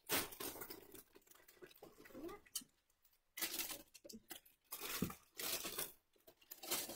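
Rustling and crinkling as a fabric baby carrier and packaged carriers are handled, in irregular bursts with short pauses.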